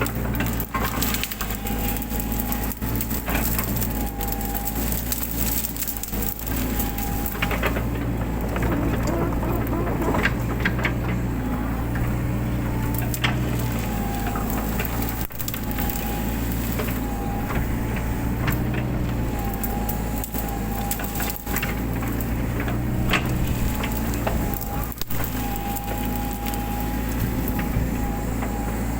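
Mini excavator's diesel engine running steadily under load, its hydraulic whine rising and falling as the arm works. Over it come frequent sharp cracks and snaps of shrubs and branches being broken and crushed.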